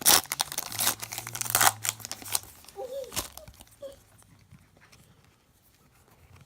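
Foil trading-card pack wrapper being torn open and crinkled, a run of sharp crackling rips that dies away about three seconds in.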